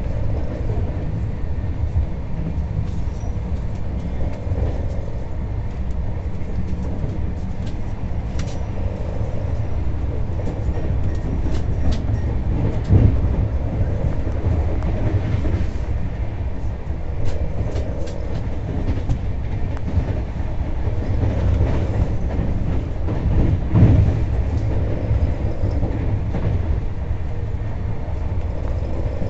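Express passenger train running at speed, heard from inside the coach: a steady low rumble of wheels on rails with scattered light clicks and two louder thumps, one near the middle and one later on.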